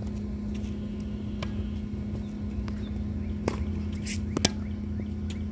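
Tennis ball pops off racket strings and the hard court, a few sharp strikes spread through the stretch, the loudest about four and a half seconds in, over a steady low hum.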